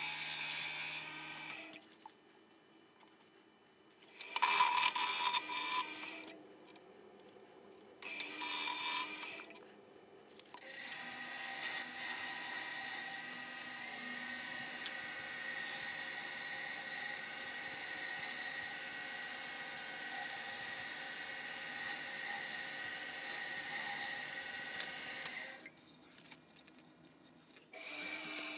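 Wood lathe spinning a dry spalted maple bowl blank while a turning gouge cuts the outside: three short cuts with pauses between them, then one long steady cut with a high whine lasting about fifteen seconds, which stops a few seconds before the end.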